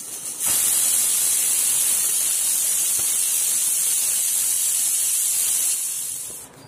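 Pigeon Deluxe aluminium pressure cooker whistling: steam hisses steadily out under its weight valve, starting abruptly just under a second in and fading out near the end. The whistle is the sign that full pressure has built inside as the mutton cooks.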